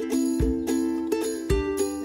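Background music with a steady beat: sustained melodic notes over a low thump about once a second.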